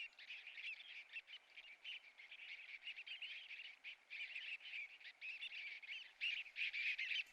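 A flock of shorebirds calling: many short, high chirps overlapping in a faint continuous chatter that grows denser near the end.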